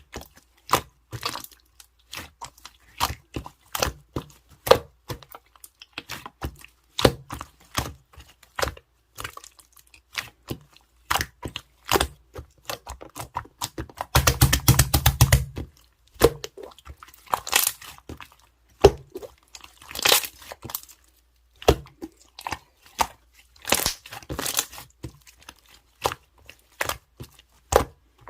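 Slime being squeezed and poked by hand, giving an irregular run of sharp clicks, pops and crunchy crackles, with a dense crackling stretch about halfway through.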